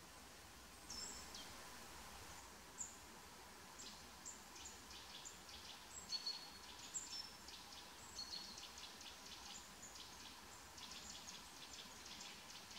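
Small birds calling faintly: many brief, thin, high-pitched chirps and a few short whistles, coming more thickly from about four seconds in. A faint steady hum runs underneath.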